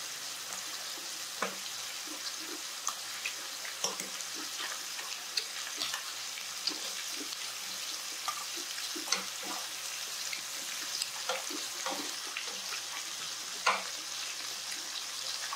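Duck slices sizzling in a frying pan, a steady hiss, with scattered light clicks of chopsticks and a spoon against the bowls.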